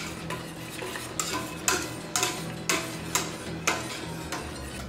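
A stirring utensil tapping and scraping against the side of a stainless steel stockpot while a milk mixture is stirred, in an even rhythm of about two taps a second.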